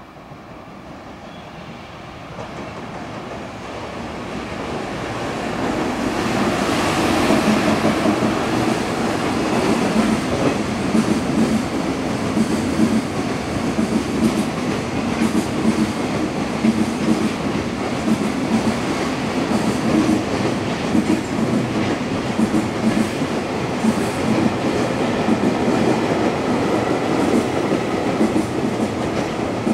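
JR Freight EF210 electric locomotive and its freight train passing through a station. It grows louder over the first several seconds as it nears, then gives a steady clatter of wheels over the rail joints.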